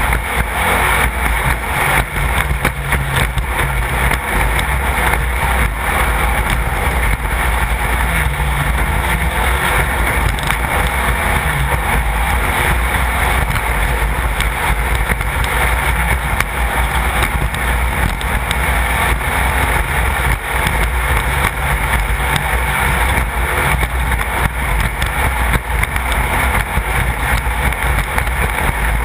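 A 1600-class off-road race car running steadily under way, its air-cooled Volkswagen 1600 flat-four making a dense, unbroken noise with many small knocks and rattles through it.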